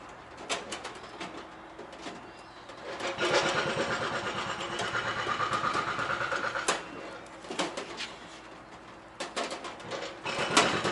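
A small power tool runs for about three and a half seconds and stops abruptly, among sharp metallic clicks and knocks from handling bolts, washers and tools while bolting on a heater mounting plate.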